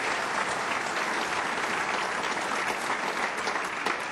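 A large audience applauding, many hands clapping steadily together.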